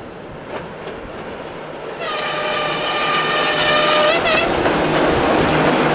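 ChME3 diesel shunting locomotive approaching and passing close with a passenger train, its engine sound swelling as it nears. About two seconds in it sounds its horn, one steady blast a little over two seconds long, and then the wheels clatter over the rail joints as the locomotive and coaches go by.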